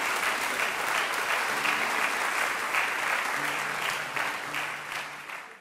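Concert audience applauding: dense, steady clapping that eases off and then cuts off abruptly near the end.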